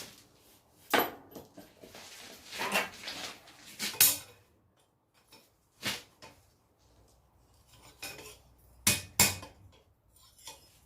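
About seven light metallic clanks of a hammer on a steel knife blank at the anvil, irregularly spaced a second or more apart. They are the taps closing a wraparound handle curl that had sprung a little open.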